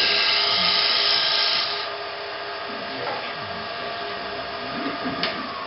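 Bowl gouge cutting the inside of a bowl spinning on a wood lathe, a loud steady hiss of wood shaving away that stops about two seconds in as the tool comes off the wood. The lathe keeps running with a steady hum, and a sharp click sounds near the end.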